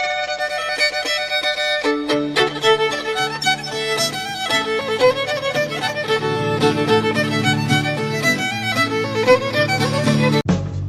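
Fiddle-led instrumental music, with a lower accompaniment joining about two seconds in; it cuts off abruptly just before the end.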